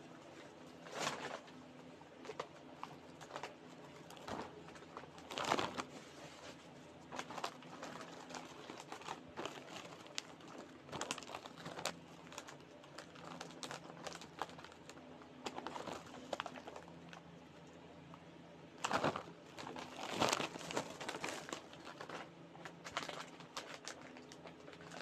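Plastic snack packaging crinkling and rustling in irregular bursts as a clear plastic bag and foil snack packs are handled and torn open. The loudest rustles come about five seconds in and again around nineteen to twenty-one seconds.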